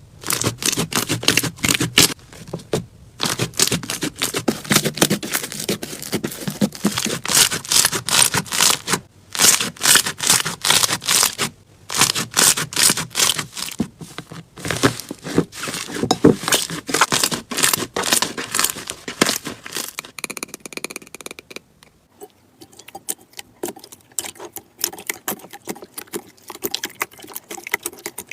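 Slime being squeezed and pressed by hand, giving dense crackling and popping clicks. About two-thirds of the way through the crackling turns much fainter and softer.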